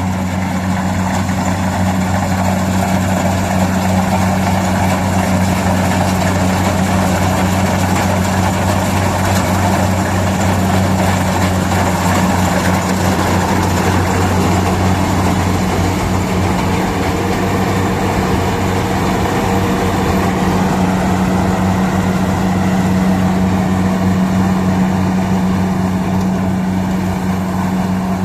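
Kubota DC-60 rice combine harvester running steadily close by, its diesel engine giving a constant low hum under the noise of the working machinery.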